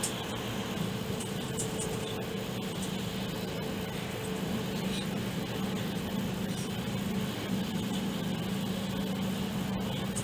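Steady running noise of a Shinkansen bullet train at speed, heard inside the passenger cabin: an even hiss with a constant low hum.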